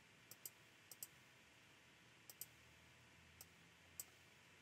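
Computer mouse clicking over faint room hiss: a handful of short sharp clicks, several in quick pairs, with longer gaps between them.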